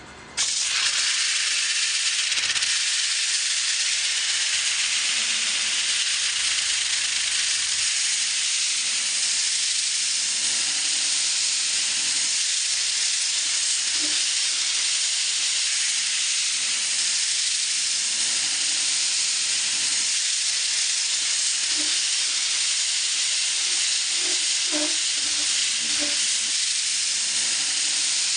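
Homemade sanding jig's abrasive pressed against a wooden spindle turning on a lathe: a loud, steady hiss of sanding that starts about half a second in and holds evenly.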